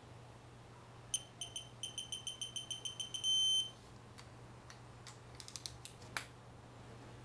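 Electronic beeper: a run of short high beeps that come faster and faster, ending in one long steady beep. A few light clicks follow.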